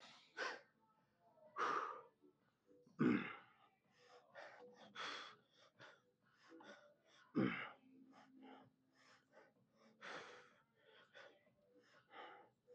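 A man breathing hard through a set of leg extensions: a string of short, forceful exhalations and gasps, a few of them louder, as he strains through the reps.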